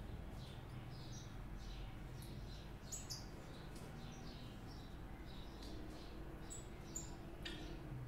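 Small cage birds chirping with short, scattered call notes, a few each second, with a couple of sharper, higher notes about three and seven seconds in, over a faint low steady hum.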